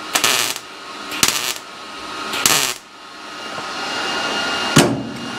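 A MIG welder laying short tack welds on thin sheet-metal body panel: three quick bursts of sputtering hiss, each under half a second. After them comes a steady noise that builds in level, with a sharp click near the end.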